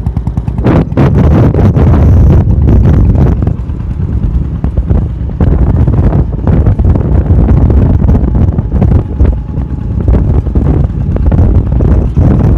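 Motorcycle powered by an old diesel engine converted to run on petrol, running loudly with a rapid low pulsing, and wind buffeting the microphone. The owner says the engine still often detonates, perhaps because the ignition timing or the fuel is not yet right.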